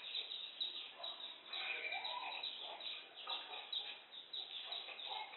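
Pestle grinding spices in a cobek (mortar): rapid, repeated gritty scraping strokes.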